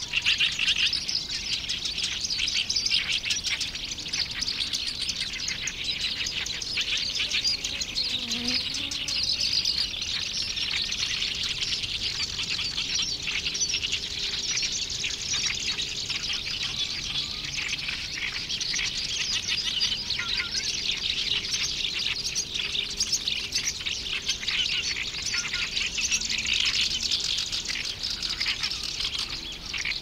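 Black-browed reed warbler singing: a rapid, unbroken run of high, varied chattering notes.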